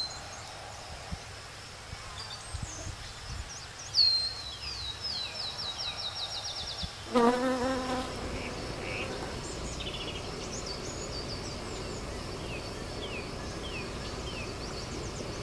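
Summer outdoor ambience: insects trilling steadily at a high pitch, with scattered bird chirps, a fast descending run of bird notes about four seconds in and a louder, lower wavering call about seven seconds in.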